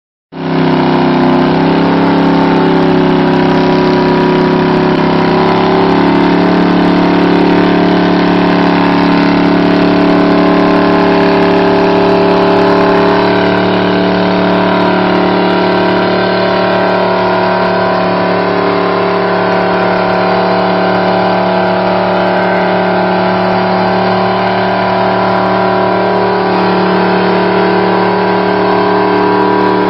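Chevrolet C10 pickup's engine held at high revs in a burnout, its rear tyres spinning against the pavement. The engine note stays steady and loud, with small shifts in pitch.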